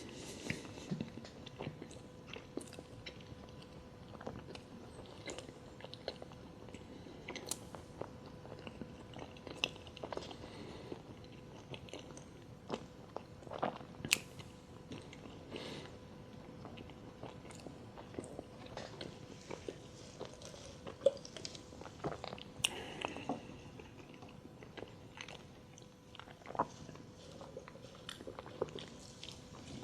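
Close-miked chewing and biting of Taco Bell food, with irregular crisp crunches and wet mouth clicks.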